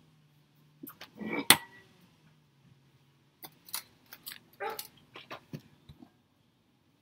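A dog making short vocal sounds in several bursts, with a sharp knock about a second and a half in.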